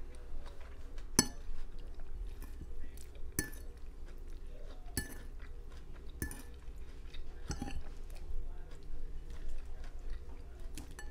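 A plastic fork clicking and scraping against a plate as salad is picked up, with about five sharper clicks spread through and chewing in between.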